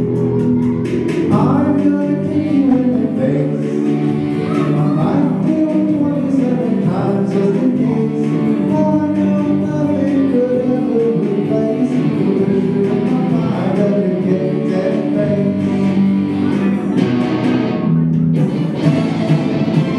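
A live band playing a rock song: strummed electric guitar under a singer's voice.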